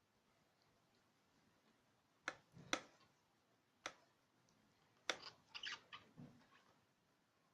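A few sharp clicks and light knocks of kitchen items being handled and set down on a counter, after a couple of seconds of near silence, with a short cluster of clicks about two-thirds of the way in.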